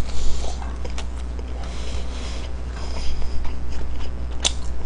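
Close-miked chewing of McDonald's french fries: soft mouth sounds with a few sharp clicks, over a steady low hum.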